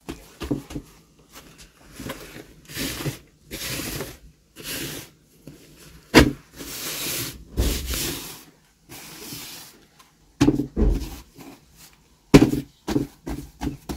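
Large mass of bread dough being kneaded by hand on a flour-covered cloth: a run of soft, even swishes as it is pushed and rubbed through the flour, with a couple of sharp thuds as it is dropped back down about six and eight seconds in. Quicker, duller knocks and pats follow near the end.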